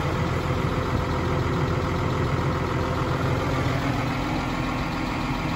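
New Holland T7.270 tractor's six-cylinder diesel engine running steadily, heard from inside the cab.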